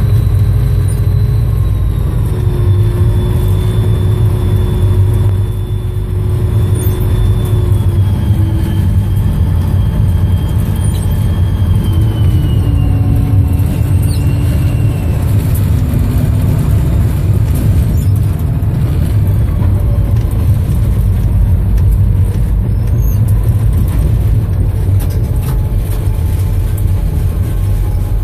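EMD SD40-2 diesel locomotive under way, its 16-cylinder two-stroke diesel and running gear making a loud, steady low rumble. Over the first half a faint whine glides slowly down in pitch.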